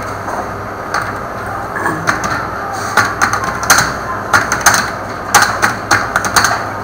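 A computer keyboard and mouse clicking, with a quick, irregular run of sharp keystrokes from about three seconds in, over steady room noise.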